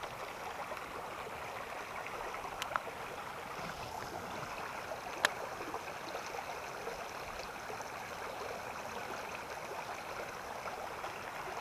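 Shallow brook running over stones, a steady rushing and gurgling of a small riffle. Two sharp clicks stand out over it, a few seconds apart, the second louder.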